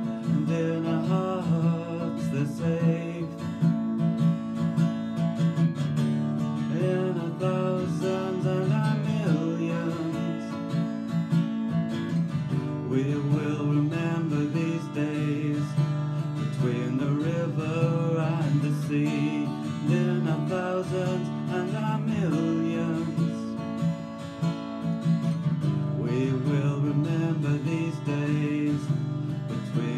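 Acoustic guitar strummed steadily as a song accompaniment, with a man's voice singing along at times.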